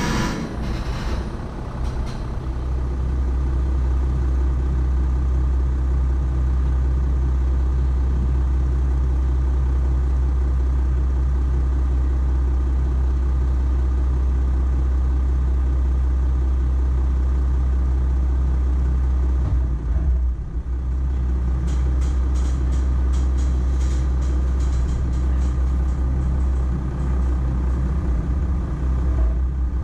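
Volkswagen Amarok pickup driving over an off-road course, its engine and drivetrain a loud, steady low rumble. About two-thirds through there is a short jolt, then a run of sharp clicks and rattles for a few seconds.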